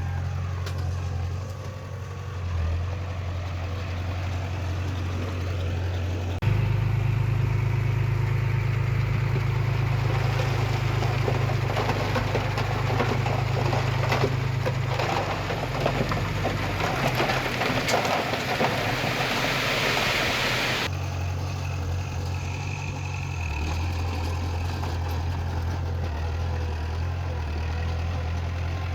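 Diesel engines of heavy earthmoving machinery running steadily. The sound shifts abruptly about six seconds in to a louder, busier stretch with added clatter and hiss, which cuts off suddenly about 21 seconds in.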